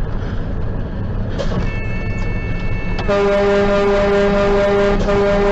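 Big-rig air horn blowing one long steady blast from about three seconds in, over the rumble of the moving truck. It is a warning to clear the road from a loaded truck whose brakes have failed.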